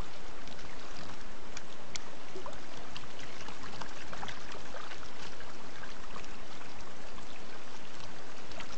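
A dense shoal of fish thrashing at the water's surface in a feeding frenzy: continuous churning and splashing, dotted with many small sharp splashes.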